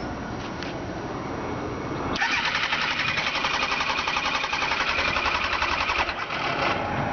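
2002 Kawasaki ZX-9R's electric starter cranking the engine with a fast, even pulsing, starting about two seconds in and stopping after about four seconds, without the engine catching: the bike won't start.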